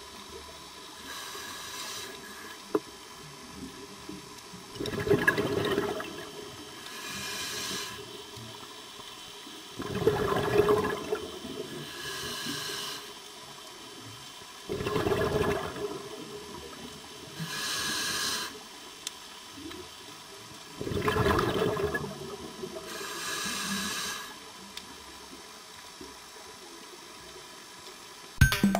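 Scuba regulator breathing underwater: a soft hiss of each inhalation alternating with a louder rush of exhaled bubbles, about one breath every five seconds.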